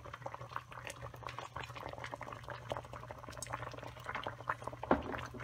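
Dense small crackles and bubbling from pots heating on the stove: hot olive oil in one pot, plantains boiling in water in another. A steady low hum runs underneath, and there is a single knock about five seconds in.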